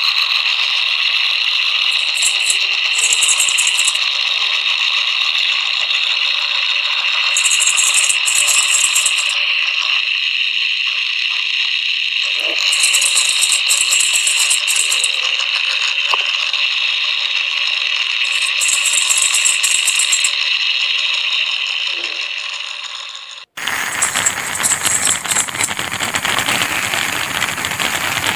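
Harsh, noisy rattling over a steady hiss, with a shaker-like rattle in short bursts every few seconds. It drops out abruptly about 23 seconds in and gives way to a louder, coarser rattling noise.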